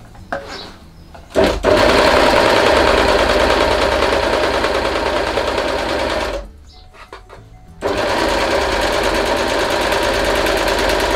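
Janome 2000D AirThread overlocker stitching a seam through two layers of calico at steady speed. It runs for about five seconds, stops for just over a second, then runs again to the end. A few light handling clicks come before it starts.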